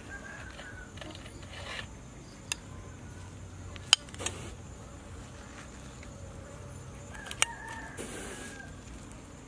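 Metal spoon clinking sharply against a glass bowl a few times, the loudest about four seconds in, between soft scraping as a thick fish-and-egg paste is scooped and pressed.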